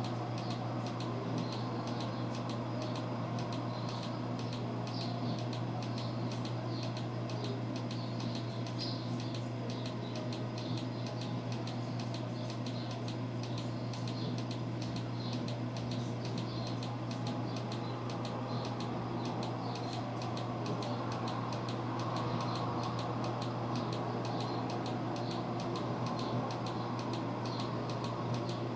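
Steady low electrical hum with faint, regular ticking over it.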